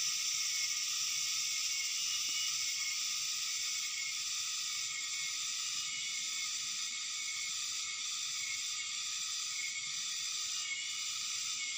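Steady, dense chorus of insects buzzing and trilling in the garden, high-pitched with no rise or fall.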